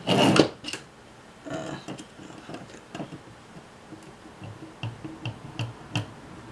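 Small metal and plastic parts of a camcorder tape mechanism being handled and worked with a small tool on the sheet-metal chassis plate: a brief louder clatter at the start, then a run of light, separate clicks and ticks.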